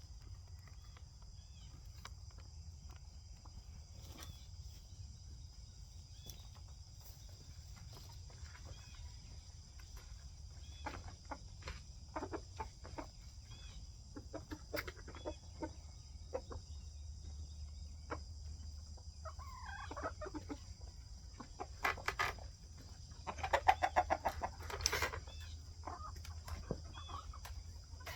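A flock of chickens clucking, with scattered short taps and a louder run of calls about three-quarters of the way through.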